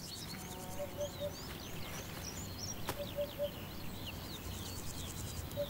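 Birds calling in a meadow: many small birds chirp high and fast, over a low three-note hooting call that repeats three times, about two and a half seconds apart. A single brief click sounds about three seconds in.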